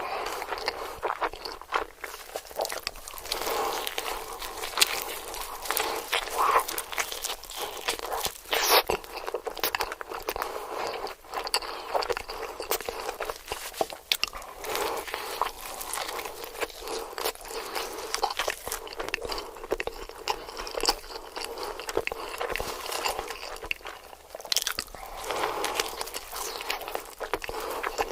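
Close-up eating sounds: a person chewing and biting food, with a steady stream of wet clicks and crunches.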